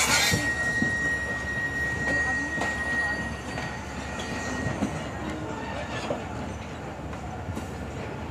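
Pakistan Railways passenger coaches rolling past, their wheels rumbling and clicking over rail joints. A steady high wheel squeal sounds for the first few seconds, and there is a brief rush of noise at the very start.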